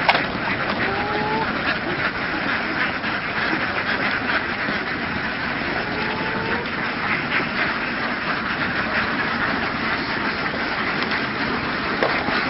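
A large flock of domestic laying ducks quacking together in a dense, continuous chorus at a steady level.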